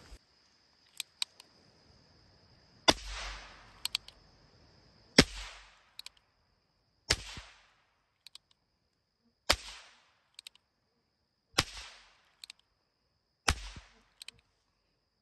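Percussion caps popping on the empty cylinder of a Pietta 1858 Remington New Model Army cap-and-ball revolver: six sharp pops about two seconds apart, with small hammer clicks between them. Caps fired alone like this clear the nipples before the revolver is loaded.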